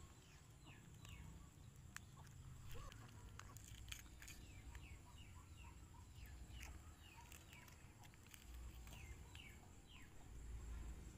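Faint bird chirping: many short chirps, each falling in pitch, repeating several times a second in places, over a low rumble.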